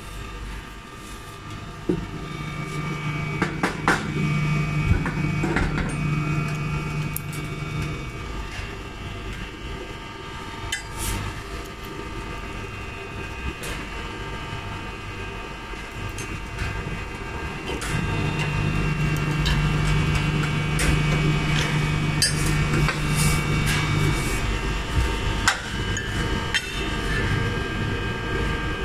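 Hand deburring of a machined aluminium part: scattered scrapes and sharp clicks of a small hand scraper on the metal edges, over a steady machine hum that swells louder twice for about six seconds each.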